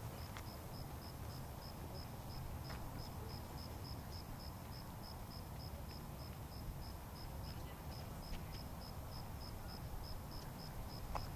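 A cricket chirping steadily at about four chirps a second, over a low rumble of wind.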